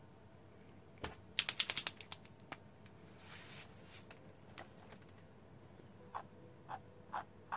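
Faint clicks and taps of paint markers being handled on a table: a quick run of small clicks about a second and a half in, a brief soft rustle around three seconds, then a few light taps near the end.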